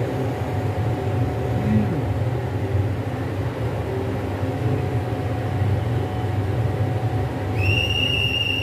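Steady low rumble of an LHB Vistadome coach rolling slowly out along the platform, heard from inside the coach. Near the end, a high, steady whistle-like tone sounds for about a second.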